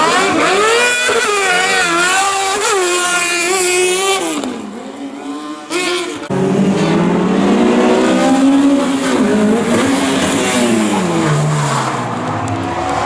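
A buggy-style rally car's engine revving hard, its pitch wavering up and down as the car spins around, then fading. About six seconds in, it gives way abruptly to a Honda Civic hatchback rally car's deeper engine revving up and down, with tyre squeal as the wheels spin and smoke.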